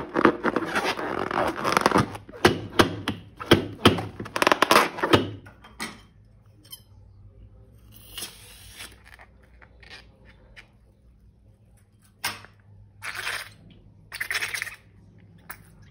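Balloons and slime being handled: a rapid run of rubbery squeaks and crackles, then a few short squishes near the end.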